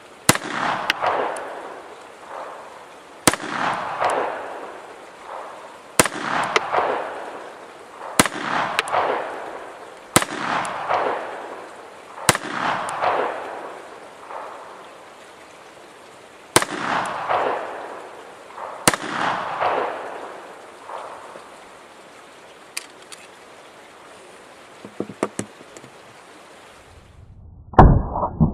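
Eight shots from a Llama Especial .380 ACP (9 mm short) pistol, fired slowly at irregular intervals of two to four seconds, each crack followed by an echo lasting over a second. Eight is a full load of seven in the magazine and one in the chamber. A few faint clicks follow, then one louder, duller bang near the end.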